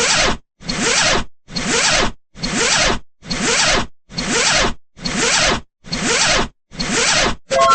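A zipper being pulled, played as a sound effect and repeated about nine times at roughly one-second intervals, each a short rasping rip. Near the end it gives way to a rapid ticking rattle with musical tones.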